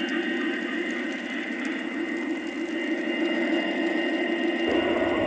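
QSI sound decoder in an Aristocraft CSX GP-40 model locomotive playing a steady diesel engine sound through its small speaker as the train runs, thin with no deep bass. Near the end a deeper rumble comes in.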